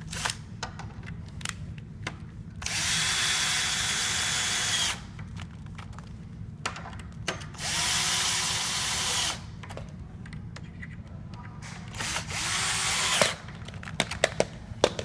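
Cordless drill driving three screws into a trundle bed's side rail: three runs of the motor, the first about two seconds long and the last shortest, with small knocks and clicks of the screws and rail being handled in between.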